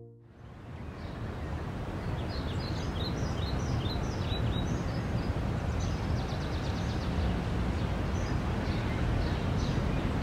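Outdoor city ambience fading in: a steady low hum of street noise with birds chirping over it, most busily a few seconds in.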